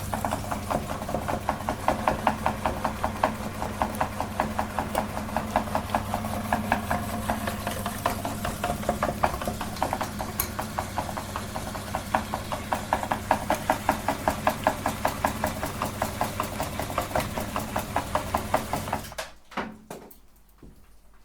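Electric meat grinder running, its motor humming steadily with a fast, even clicking rattle from the gears and auger as ice cream is fed through. It shuts off about two seconds before the end.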